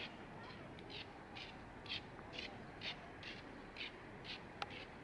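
A bird calling over and over in short, evenly spaced calls, about two a second, with a single sharp click near the end.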